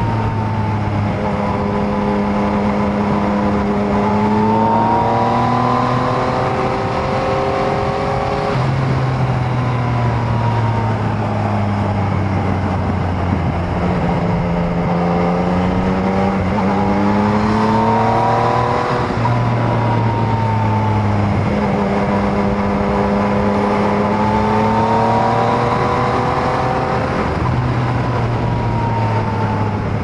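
Yamaha MT-09 motorcycle's inline three-cylinder engine under way, its pitch climbing over several seconds and then falling back, three times over, over a steady rush of wind noise.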